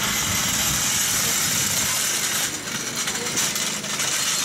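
Steady high-pitched hiss of compressed air from a pneumatic tool during a rally-car tyre change. It eases off about halfway through and then picks up again, with voices underneath.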